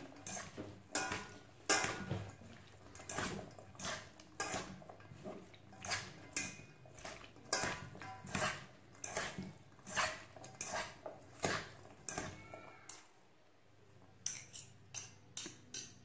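Two metal forks clinking and scraping against a stainless steel mixing bowl as a dressed salad is tossed, in irregular strokes about once or twice a second. The strokes pause briefly near the end, then come back as a quicker run of clinks.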